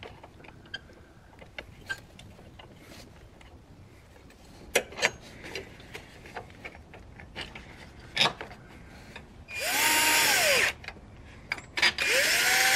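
Cordless drill driving in the battery hold-down bracket's bolt in two short runs: about ten seconds in the motor spins up and winds back down, and near the end it runs again at a steady pitch. Before that, light clicks and knocks of the bracket being fitted over the battery.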